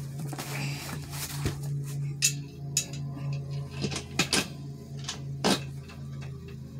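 Scattered sharp metallic clicks and clinks as a gaming chair's steel backrest bracket and its hardware are handled and fitted, over a steady low hum.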